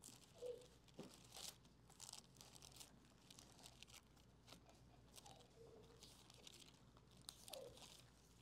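Faint, irregular rustling and crinkling of thin Bible pages being leafed through.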